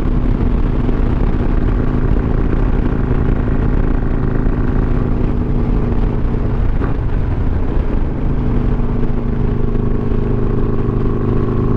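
Harley-Davidson Iron 883 Sportster's V-twin engine running at a steady cruise through a Two Brothers Racing Comp S stainless 2-into-1 exhaust, heard from the rider's seat. About seven seconds in, the engine note wavers briefly, then holds steady again.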